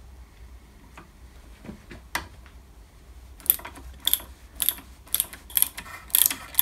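Hand tapping an M5 thread with a tap handle in a tap guide. From about three and a half seconds in, a ratchet clicks about twice a second as the handle is worked back and forth. One sharper tick comes a little earlier.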